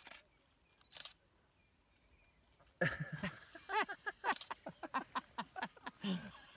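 A camera shutter clicks in a quick burst, then once more about a second in. From about three seconds in comes a louder, rapid run of short pitched vocal sounds, several a second.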